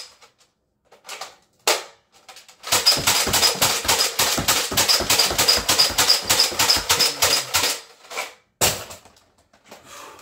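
Nerf Alpha Trooper pump-action blaster fired in a rapid string of shots for about five seconds, each pump stroke and shot a sharp clack, with a high pulsing squeak from the epoxy on the plunger tube. A few separate clicks of handling come before and after the string.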